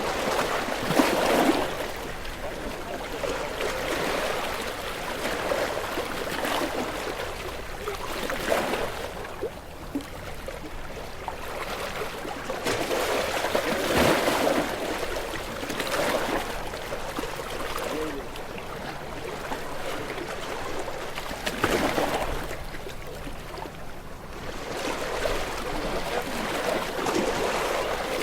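Gentle sea waves washing onto a shore, breaking in a hissing surge every few seconds, with softer wash and trickle between them.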